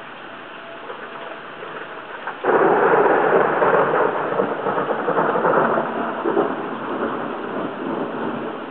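Hurricane wind and rain buffeting a small waterproof camera: a steady rush, then about two and a half seconds in a sudden much louder gust that slowly dies away.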